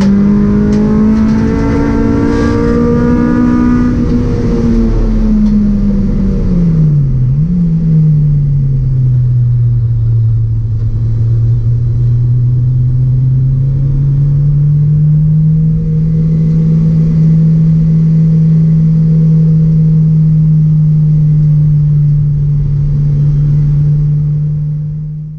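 Honda Civic Type R EP3's 2-litre four-cylinder engine heard from inside the stripped race car's cabin. It is held at high revs for the first few seconds, then the revs drop away with a brief dip as the car slows. After that it runs steadily at much lower revs, climbing slightly and holding.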